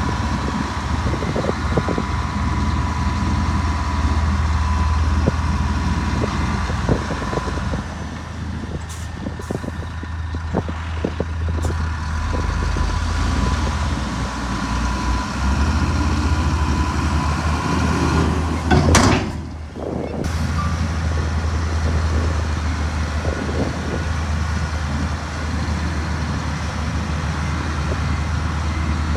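Heavy diesel earth-moving machinery running steadily with a low engine rumble and scattered knocks and clanks. A steady high whine runs through the first several seconds, and a loud rush of noise, like an air release, comes about nineteen seconds in.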